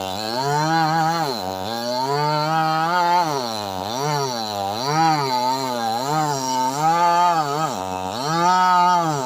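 Two-stroke chainsaw cutting into very hard wood at high revs. Its engine pitch sags and recovers about once a second as the chain loads up in the cut.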